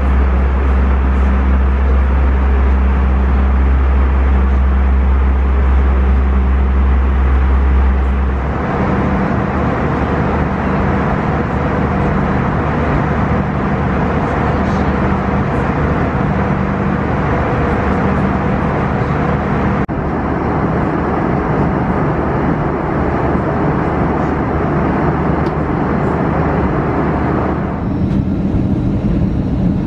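Airbus A320 cabin noise in flight: a steady roar of airflow and jet engines with a deep rumble. The tone of the roar changes abruptly about 8 seconds in, again around 20 seconds, and near the end.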